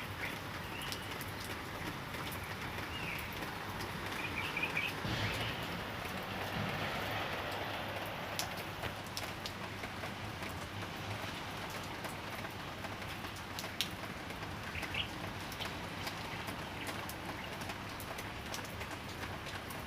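Light drizzling rain falling steadily, with scattered sharp drips. A few short bird chirps come now and then.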